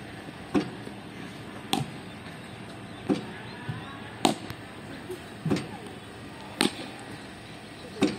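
Cricket bowling machine firing tennis balls every couple of seconds, each launch a sharp thwack, followed about a second later by the crack of the bat driving the ball: four deliveries in a steady rhythm.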